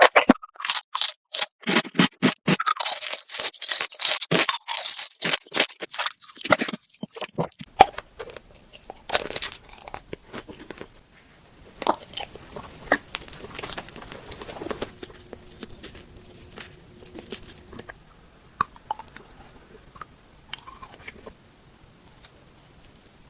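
A person biting and chewing crunchy food close to the microphone: rapid, loud, sharp crackling for the first several seconds, then quieter crunching and chewing with scattered clicks.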